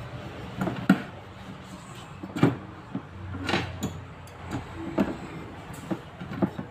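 Scattered knocks and clatter of parts being handled during a washing machine repair, about five separate hits with a faint low hum underneath.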